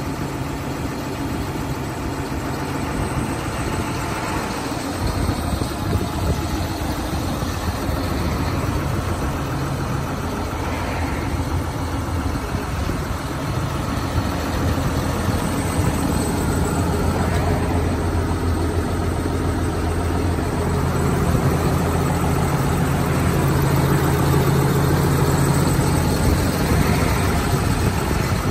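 John Deere 7430 tractor's six-cylinder diesel engine idling steadily, growing somewhat louder about three-quarters of the way through.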